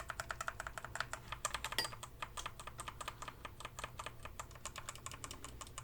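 Typing on a Redragon Kumara mechanical keyboard with Outemu Red switches: a rapid, fairly quiet run of key clicks, with one louder stroke a little under two seconds in.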